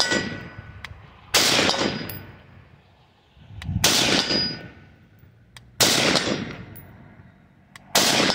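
A 20-inch 5.56 AR-15 rifle fired semi-automatic, four single shots a little over two seconds apart. Each shot is a sharp crack followed by a long rolling echo.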